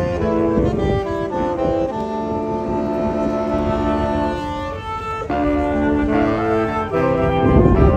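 Instrumental music: a melody of held notes that step from pitch to pitch, thinning briefly about five seconds in. A low rumble rises under it near the end.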